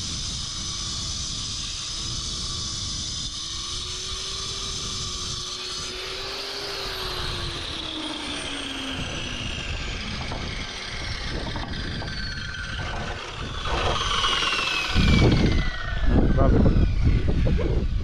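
A machine motor running, its pitch slowly falling over several seconds, then wind buffeting the microphone in the last few seconds.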